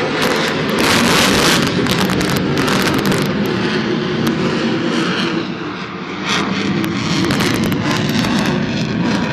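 Twin-engine Sukhoi Su-35 fighter jet flying a display, a very loud, rough jet noise with a continuous crackle. It eases slightly about six seconds in, then swells again.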